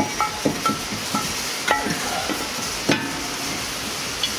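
Metal brake rotor knocking and scraping against the wheel hub as it is worked onto the hub by hand: a string of short metallic clinks, each ringing briefly, the loudest about a second and a half in and near three seconds in, over a steady hiss.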